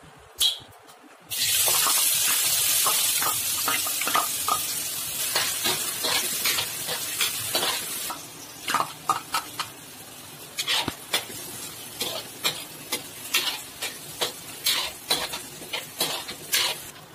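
Chopped onions hitting hot oil in a metal kadai about a second in, setting off a loud sizzle that eases off after several seconds. A metal spatula then scrapes and clinks against the pan again and again as the onions are stirred over a quieter frying sizzle.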